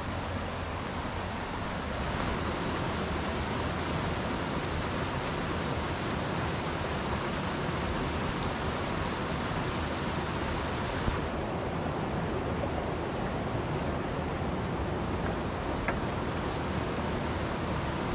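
A river rushing steadily, a continuous loud hiss of moving water.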